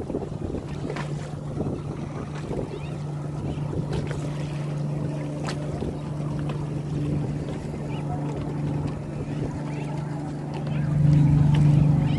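Boat engine running with a steady low drone over the wash of choppy water and wind; the engine gets louder about eleven seconds in.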